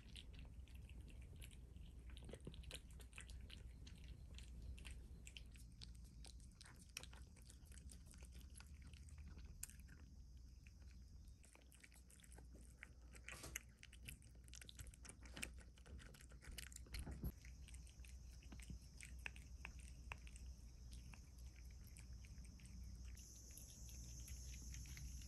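Cats eating soft mango pieces: faint, irregular wet chewing and licking clicks.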